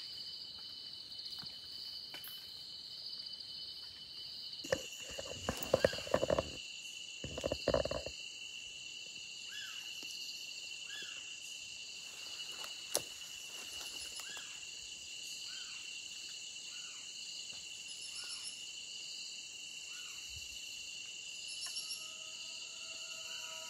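Night insect chorus of steady, shrill high tones, with a short falling call from an unidentified animal repeating about once a second through the middle. A few loud rustles and knocks come about five to eight seconds in, and music begins near the end.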